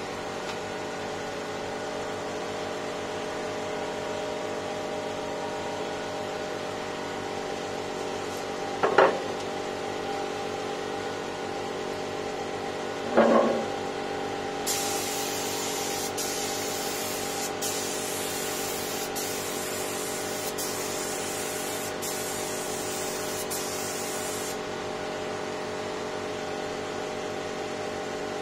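Compressed-air spray gun hissing in a long spray that starts about halfway through, broken by several brief trigger releases, over a steady machine hum. Two short knocks come a few seconds before the spraying starts.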